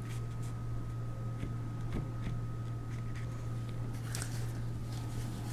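Acrylic paint marker being pressed and scribbled on a paper towel to start the paint flowing: a few faint taps and scratches, strongest about two and four seconds in. Under it a steady low electrical hum with a faint high whine.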